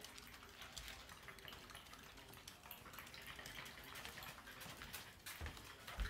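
Quiet room with faint scattered ticks: a French bulldog's claws tapping on the floor as it walks, with a soft low thump about five and a half seconds in.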